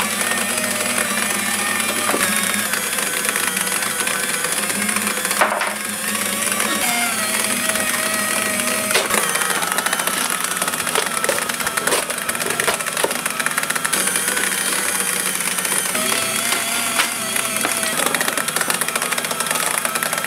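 Staples desktop paper shredder running, its cutters chewing through cardboard packaging: a steady motor hum under continuous tearing and crunching, with a short lull about six seconds in.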